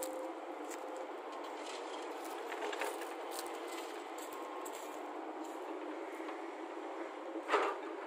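Hyundai crawler excavator running steadily as it swings and lowers its bucket, with scattered light clanks and one louder knock near the end.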